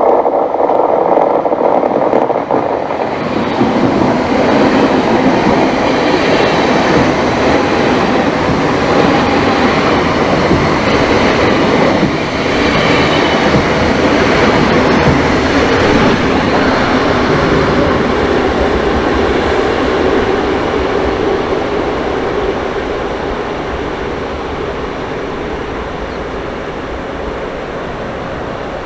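Two coupled DB class 425 electric multiple units passing through a station at speed, their wheels and running gear rattling continuously over the rails. A steady tone sounds for the first couple of seconds and cuts off suddenly; the train noise then fades slowly toward the end as the units move away.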